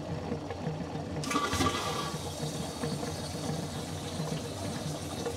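A boat's pump-out toilet being flushed. It starts with a brief whine about a second in, then water rushes steadily. It is flushed while the pump-out has nearly emptied the holding tank, so that the flush pushes water into the tank and stirs up what lies on the bottom.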